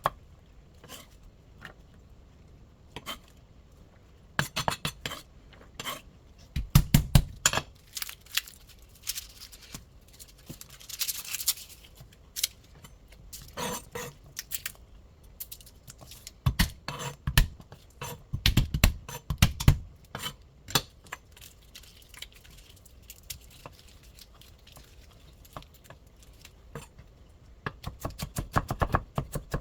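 Knife chopping vegetables on a cutting board in short runs of quick strokes with pauses between, along with clinks of the knife and dishes.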